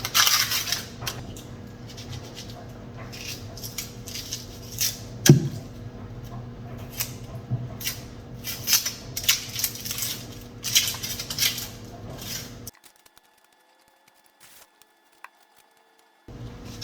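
Household clatter: irregular clicks and knocks of objects being handled and set down, over a steady low hum, with one sharper knock about five seconds in. The sound cuts out to near silence for about three and a half seconds near the end.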